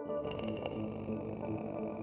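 Background music that changes abruptly at the start, from steady synth tones into a denser, noisier passage with scattered short tones.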